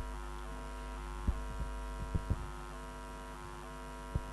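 Steady electrical mains hum from the sound system, with about five short low thumps in the middle and near the end.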